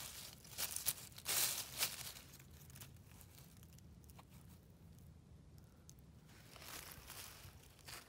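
Dry fallen leaves crackling and rustling as a porcini mushroom is grasped and twisted out of the leaf litter, loudest in a few crunchy bursts within the first two seconds. It then goes quieter, with another brief rustle near the end.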